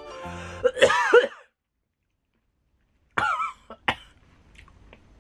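A man coughing and spluttering with voiced, strained gasps, set off by the heat of a spicy chicken-flavoured almond. There are two bouts, about two seconds apart, with dead silence between them.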